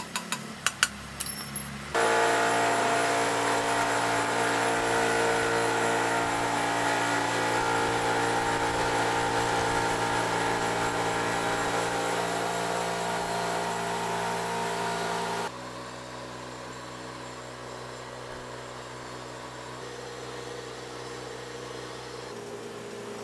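A few metallic clinks, then an engine running steadily at idle. About 15 seconds in it cuts abruptly to a quieter, steady running sound.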